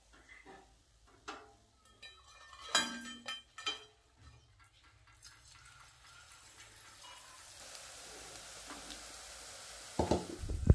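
Wire strainer clinking a few times against the metal kadhai, then hot oil sizzling as a fresh batch of besan-battered onion fritters starts deep-frying, the hiss building and holding steady. A sudden loud low thump near the end.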